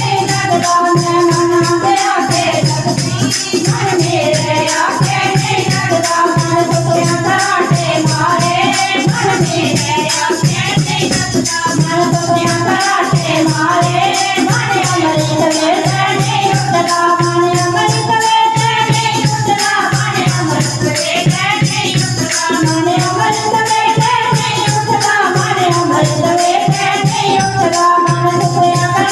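Devotional kirtan music: a melody line over steady hand percussion with a shaken rattle keeping the beat.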